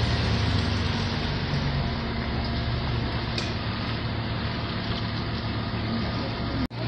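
Jeep engine running at low revs as it crawls along a muddy trail, heard from inside the cab as a steady low drone. The sound cuts out abruptly for an instant near the end.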